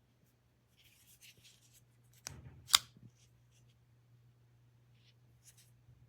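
Handling noises: light rustling, then two clicks about half a second apart, the second sharp and loud, over a steady low hum.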